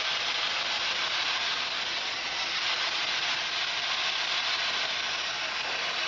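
Steady hiss of radio static from a spirit box scanning through radio frequencies.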